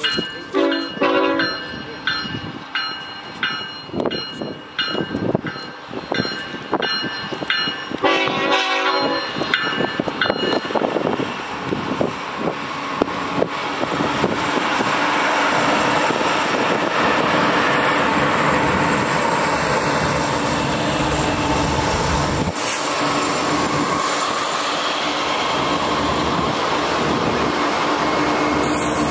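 BNSF freight train's locomotive horn sounding in a string of short blasts, with a longer blast about eight seconds in, as the lead locomotives approach. The locomotives and a long line of autorack cars then roll past with a steady rumble and clatter of wheels on rail.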